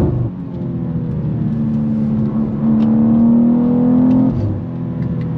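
The 2023 BMW M2's 3.0-litre twin-turbo inline-six under hard acceleration, heard from inside the cabin. The revs drop sharply at a quick upshift right at the start, climb steadily for about four seconds, then fall away.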